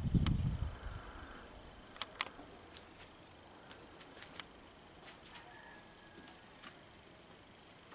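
Quiet outdoor ambience: a brief low rumble on the microphone in the first second, then scattered sharp clicks and ticks, with a faint steady high tone and a short high whistle about five and a half seconds in.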